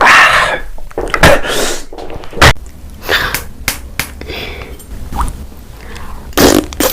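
Close-miked eating: a string of bites, crunches, chewing and mouth noises, loudest right at the start.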